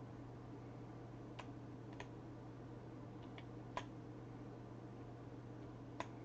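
Scattered single clicks of computer controls, about half a dozen spread irregularly, the sharpest near the middle and near the end, over a faint steady low electrical hum.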